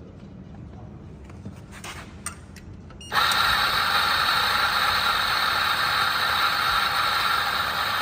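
Electric coffee grinder switched on about three seconds in, running loud and steady; a few faint clicks before it starts.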